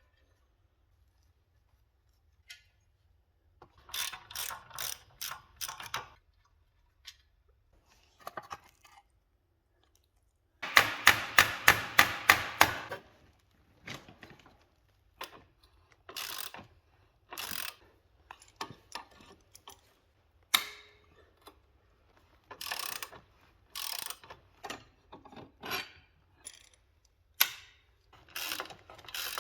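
Hand socket ratchet clicking in short bursts with pauses between them, as bolts are undone to strip down a Peugeot 206 rear axle. The loudest burst comes a little past ten seconds in, at about four clicks a second.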